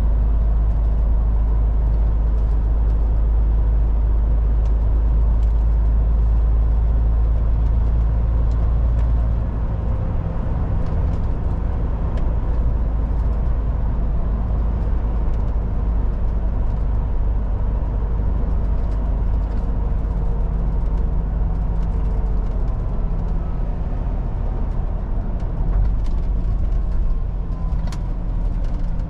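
Steady drone of a MAN TGX 18.440 semi-truck's diesel engine, with tyre and road noise, heard while the truck is driving. About nine and a half seconds in the deep low drone eases off and stays lower.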